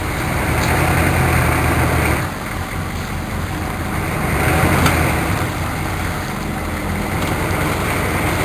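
A motor vehicle engine running steadily, getting louder for a second or two about a second in and again near the middle.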